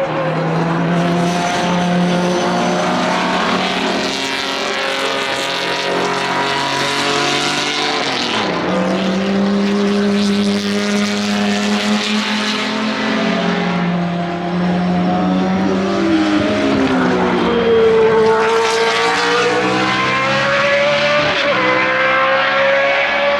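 Racing car engines running hard on a circuit, their pitch holding, then shifting and sliding up and down several times as the cars change gear and pass.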